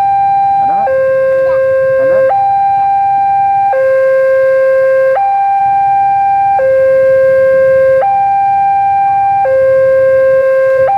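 Railway level-crossing warning alarm sounding a steady two-tone signal: a lower and a higher tone take turns, each held for about a second and a half. It signals that the crossing is closing for an approaching train.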